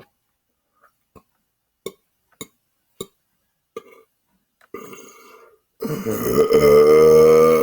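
A man belches: a long, loud, pitched belch that starts about six seconds in and carries on to the end. A shorter, quieter belch comes just before it. Several short clicks are heard in the seconds before that.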